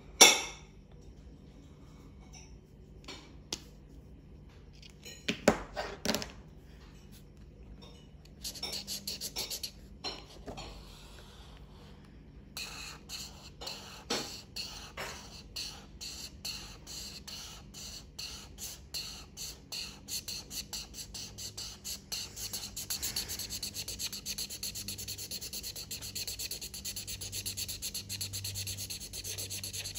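Felt-tip marker rubbing back and forth on paper as an area is coloured in, in quick scratchy strokes: sparse at first, then several strokes a second from about halfway through. A sharp click right at the start is the loudest sound.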